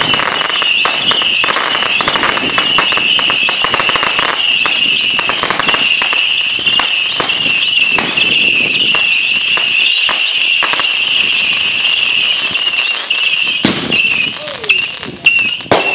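Fireworks going off: dense, rapid crackling pops over a steady high-pitched tone, with a few louder bangs near the end.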